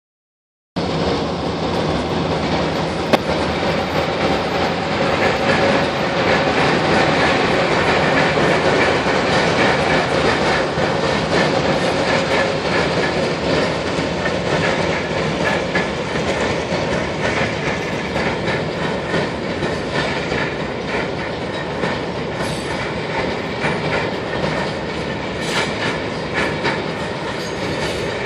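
Passenger train cars rolling over a steel railroad bridge: a steady, loud rumble of wheels on rail, with a sharp clank about three seconds in. It eases off slightly in the last third.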